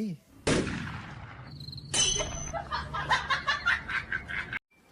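A sudden noisy burst that fades away, then about two and a half seconds of rhythmic laughter that stops abruptly.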